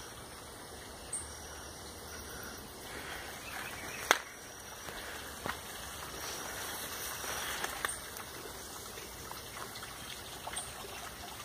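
Faint steady trickle of a small forest stream, with rustles from walking through undergrowth and a sharp click about four seconds in. A few brief high chirps sound now and then.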